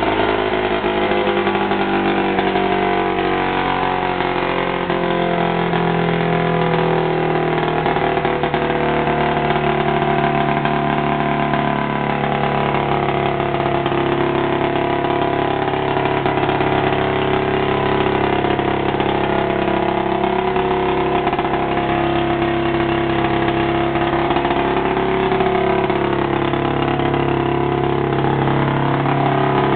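500cc two-stroke Ski-Doo snowmobile engine idling steadily, with small wavers in pitch.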